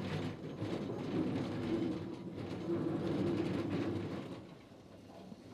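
Museum train running on the rails, heard from the locomotive's cab: a steady rumble with light clatter, dropping sharply in level about four seconds in.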